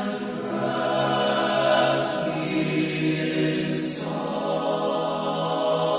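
A choir singing slow, sustained chords, with soft sibilant consonants about two and four seconds in.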